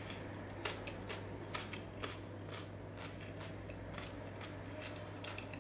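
Eating a raw salad up close: irregular crisp clicks from chewing crunchy vegetables and a metal fork tapping and picking at a glass plate, over a steady low hum.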